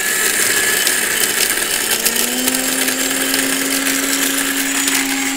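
Silver Crest multifunction blender running at high speed, grinding soda-bottle glass into powder: a loud, steady grinding rattle of glass against the jar with many small clicks. About two seconds in, a steady motor hum comes in and holds.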